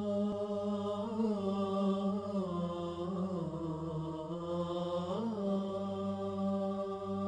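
Wordless vocal intro music: a voice chanting long held notes over a steady low drone, the pitch swelling and dipping slightly every couple of seconds.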